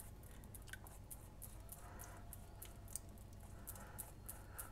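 Faint, irregular soft dabs and swishes of a pastry brush spreading egg wash over a raw pastry pie lid, several strokes a second.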